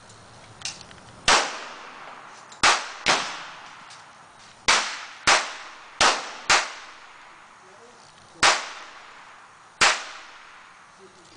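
Sig Sauer .45 ACP pistol firing nine shots at an uneven pace, some in quick pairs about half a second apart. Each shot trails off in a short echo.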